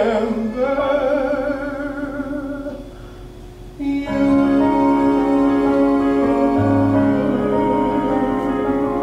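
Male voice holding a long sung note with vibrato over keyboard accompaniment. After a brief quieter dip about four seconds in, full sustained keyboard chords come in loudly and ring on, with the voice wavering above them near the end.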